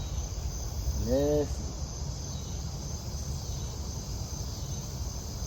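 Crickets chirping in a steady high trill over a low rumble, with a man's short hummed sound about a second in.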